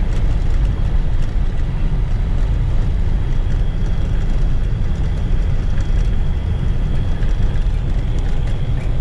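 Pickup truck heard from inside the cab while driving slowly on a rocky dirt road: a steady low rumble of engine and tyres.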